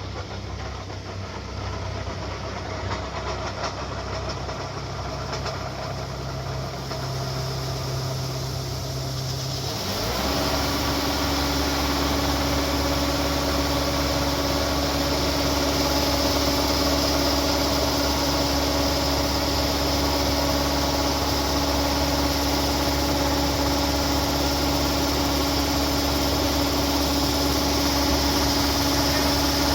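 Rice harvester's engine running steadily. About ten seconds in, its note shifts abruptly higher and louder, with more high mechanical noise, and holds there.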